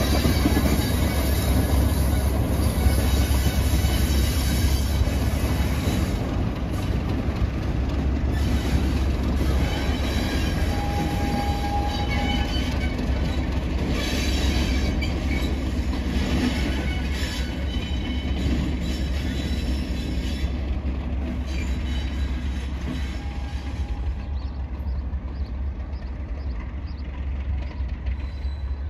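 Diesel-hauled train running along the track with a steady low rumble, rail noise and on-and-off high-pitched wheel squeal. The sound slowly eases off toward the end.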